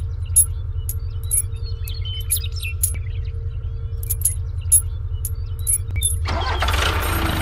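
Small metal chain clinking and jingling in short clicks as it is hooked onto a toy tractor's hitch, over a steady low engine rumble. About six seconds in, a louder engine noise comes in.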